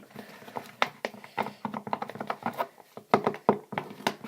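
Irregular clicks and taps of hands handling small plastic items, such as a container, bottle and stirring tool.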